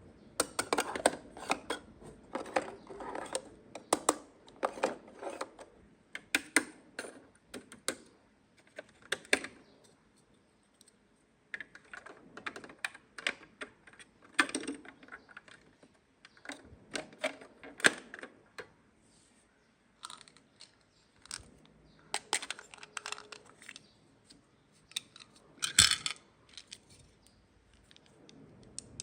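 Small plastic toy pieces clicking and clacking as they are handled and set down, in irregular clusters of taps with short pauses between. There is a sharper, louder clack about 26 seconds in.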